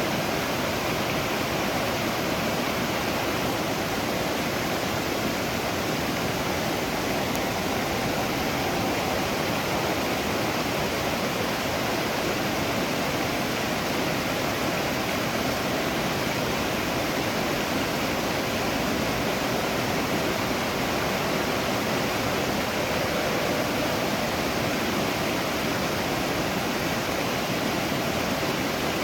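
Waterfall: water pouring and splashing as a steady, even rush with no breaks.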